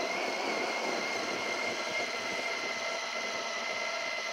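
Small electric food processor with a glass bowl running steadily, its blades mincing chunks of raw chicken breast into a puree. The motor gives a steady, even whine.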